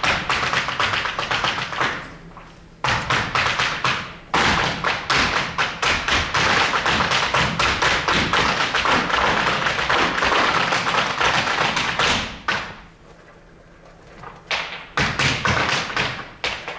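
Irish dance hard shoes beating fast rhythms on a stage floor, several dancers stepping together with no music. The rapid clicks break off briefly about two seconds in and again for about two seconds near the end before starting up again.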